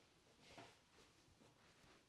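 Near silence with soft rustling of hands rubbing over hair and scalp during a head massage; the clearest swish comes about half a second in, with fainter ones after.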